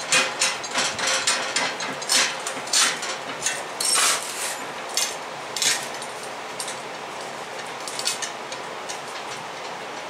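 A welded steel grill stand of 1/8-inch 2x2 angle iron clanking and rattling as the air-tank grill on top is rocked back and forth, the stand flexing far too much under it. The metal knocks come about two or three a second for around six seconds, then only a few near the end.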